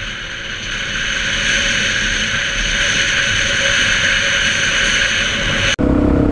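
Motorbike riding along at speed: steady engine and wind noise on the helmet camera, growing louder over the first couple of seconds. Near the end it cuts suddenly to a different motorbike's engine running with a steady low hum.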